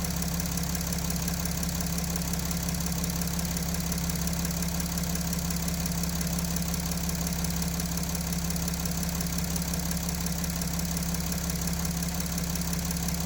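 Mercedes OM642 V6 diesel engine idling steadily.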